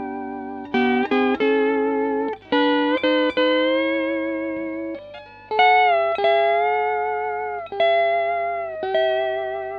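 Early Fender Pro steel guitar with Nick Fryer pickups, played through a Fender Bassman amp: plucked chords ring out and fade, changing every second or two. The longer held chords in the second half have a slight waver.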